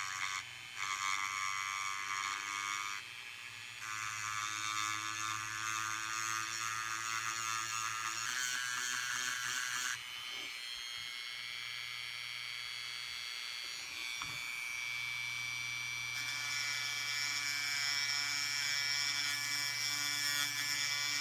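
High-speed rotary tool grinding excess solder off a 14k gold ring band: a steady high whine that shifts in pitch several times as the tool is pressed on and eased off the metal.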